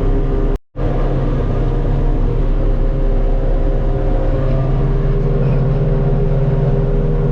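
Self-propelled forage harvester's engine running steadily under load while chopping grass for silage, with a brief dropout less than a second in.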